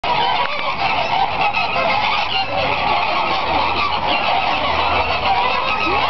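A large flock of flamingos calling all at once: a loud, continuous din of many overlapping honks with no pause.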